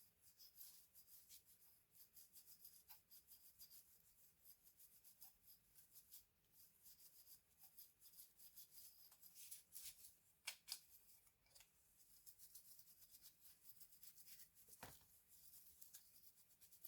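Faint clicking and rubbing of small hard parts being handled, a quick run of light ticks with a few sharper clicks about ten seconds in and a single knock near fifteen seconds.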